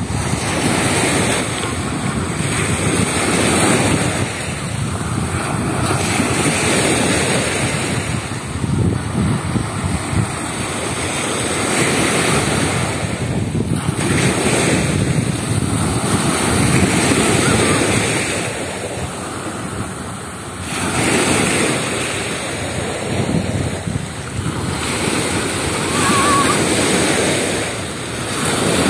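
Sea surf washing onto a beach, swelling and easing every few seconds, with wind buffeting the microphone.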